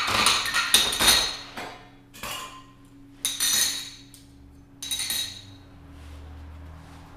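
Knocks, clatter and clinks of espresso-bar equipment being handled: metal and ceramic striking, with a dense run of impacts in the first second and a half, then a few separate short bursts.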